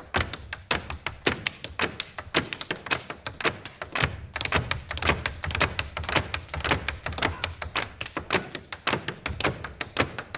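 A line of Irish dancers' hard shoes striking a stage floor in unison: a fast, even rhythm of sharp taps and heel stamps, with a denser, heavier flurry about four seconds in.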